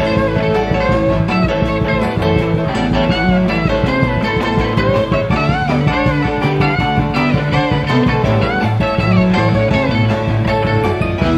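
Rock band playing an instrumental passage: a lead electric guitar with bent, sliding notes over a steady beat.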